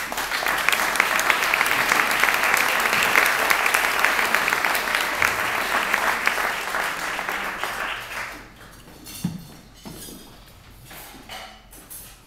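Audience applauding. The clapping starts suddenly, runs strongly for about eight seconds, then dies away.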